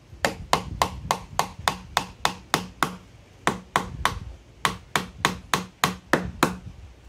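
Claw hammer nailing the bottom of a wooden birdhouse: quick, evenly spaced strikes, about three or four a second, with a short break about three seconds in.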